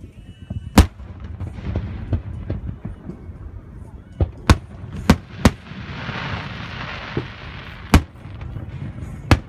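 Aerial firework shells bursting with sharp booms, about seven in all, several in quick succession between four and five and a half seconds in. A stretch of hiss follows from about six to seven and a half seconds in, over a low rumble.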